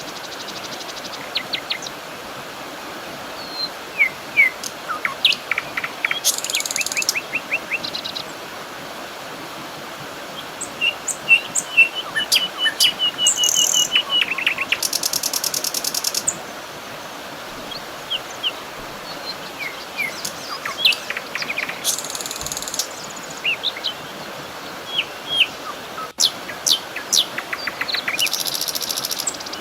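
Several wild birds singing and chirping over a steady background hiss: short whistled notes, quick chirp series and rapid trills. High, buzzy trills come back every several seconds.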